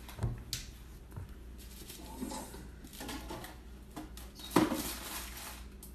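Scattered short sounds from a Chihuahua and a cat sparring on a tile floor, the loudest about four and a half seconds in, over a low steady hum.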